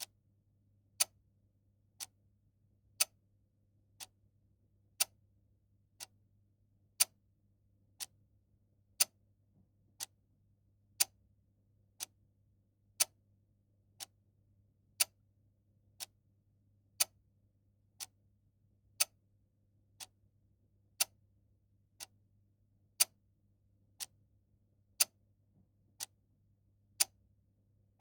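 Mechanical clock ticking steadily at one tick per second, sharp crisp clicks that alternate louder and softer in a tick-tock pattern.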